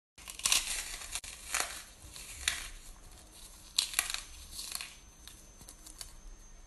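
Meringues crackling and crumbling as they are crushed by hand into whipped cream: a run of irregular crunches, loudest about half a second in and again near four seconds.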